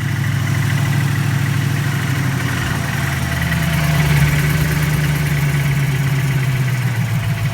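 Freshly built engine idling with the knocking sound it was filmed for; engine speed rises slightly about three to four seconds in, then settles back.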